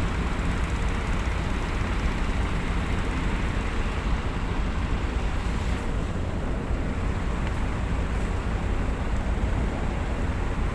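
Steady, unbroken low rumble of heavy engines running, with a noisy hiss above it.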